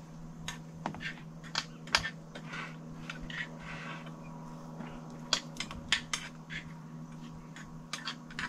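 Eating utensils clicking and scraping against plates during a meal: scattered small clinks, several of them close together about five to six seconds in, over a steady low hum.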